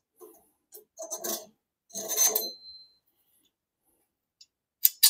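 Steel bars scraping and knocking against each other as a section of steel is handled and trial-fitted against a metal saw-stand frame, twice, the second time with a short metallic ring. Several sharp metal clinks follow near the end.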